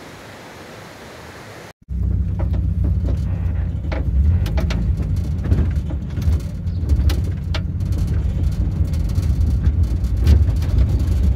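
Volkswagen Kombi van driving: a steady low engine and road rumble with small knocks and rattles, starting suddenly just under two seconds in after a stretch of quieter steady outdoor hiss.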